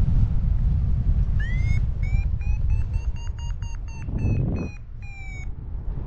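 Paraglider variometer beeping its climb tone: one rising chirp about a second and a half in, then a quick run of short beeps, about four a second, that climbs a little in pitch and stops shortly before the end, the sign that the glider is climbing in a thermal. Wind rushes over the microphone throughout and is the loudest sound.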